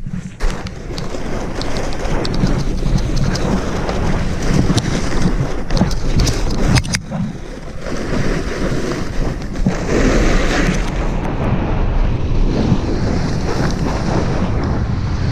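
Snowboard sliding and carving over hard, crusty snow, with wind rushing over the head-mounted GoPro's microphone.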